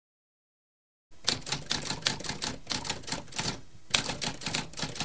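Typewriter keys clacking in quick succession, about five strokes a second, starting about a second in after silence, with a brief pause a little before the end.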